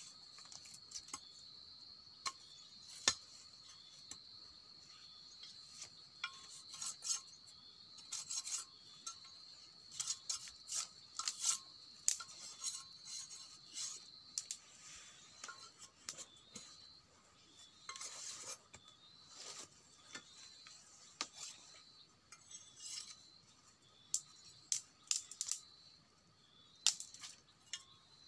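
Insects calling in a steady, high-pitched drone that weakens through the middle and returns later. Over it come irregular sharp clicks, taps and short scrapes of close-up hand work.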